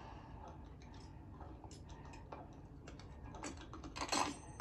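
Small metal lock picks clicking and scratching at the lock of a leather-bound book, a run of faint ticks that get louder near the end.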